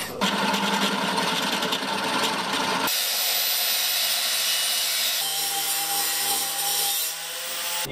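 Drill press running and drilling into the flange of a cast wheel hub, cutting fluid sprayed on the bit. The sound is steady throughout but changes character abruptly about three seconds in and again about five seconds in.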